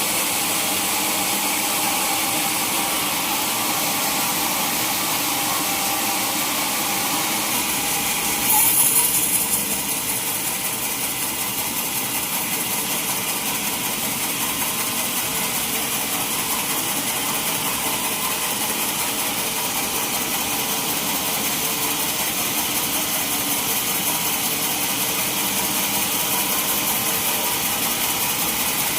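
Sawmill saw running steadily while sawing a mahogany log, with a brief louder, hissier burst about nine seconds in.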